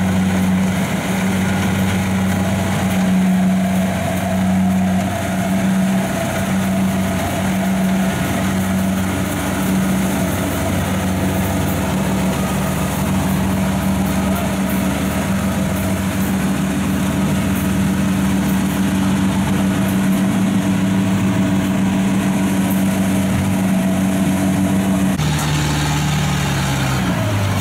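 Kubota rice combine harvester's diesel engine running steadily with a constant hum. Near the end the engine note changes abruptly and its pitch drops.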